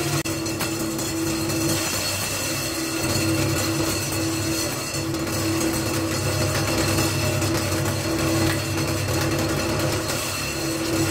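Stainless steel meat chopping machine running with a steady hum, its blade spinning through minced meat in the bowl.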